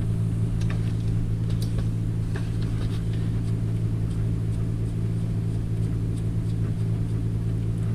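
A steady low mechanical hum runs throughout, with faint scattered clicks and taps as a bumper mounting nut is turned by hand on its bolt.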